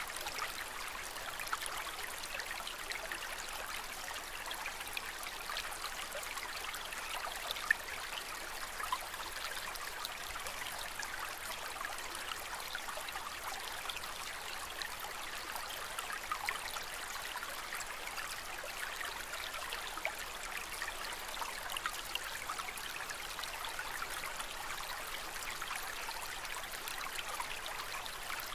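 Aquarium water trickling steadily, flecked with many small splashes.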